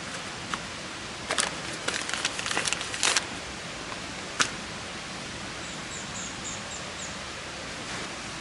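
Steady outdoor hiss with a run of short clicks and rustles from about one to three seconds in, then a single sharp click. A faint series of about six short, high chirps comes about six seconds in.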